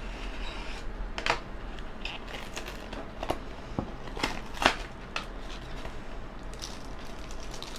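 Utility knife blade scoring through a thin white cardboard box, then the cardboard being pried apart and torn by hand in a series of sharp crackles and snaps. Near the end, the plastic film around the phone rustles as it is pulled out.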